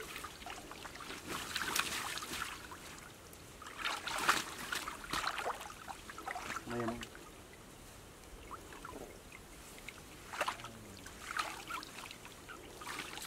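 Muddy water splashing and sloshing as a mosquito net is hauled through a shallow pond by people wading in it, coming in several separate bursts of splashing. A short voice sound is heard near the middle.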